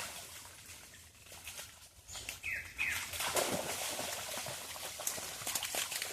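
Clicking and rustling noises with two short, high calls, each falling in pitch, a fraction of a second apart, from an animal.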